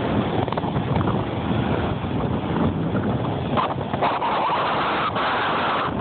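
Rough ocean surf breaking on a sandy beach, a steady rushing wash, with wind buffeting the phone's microphone. The surf's hiss grows brighter about four seconds in as a wave breaks.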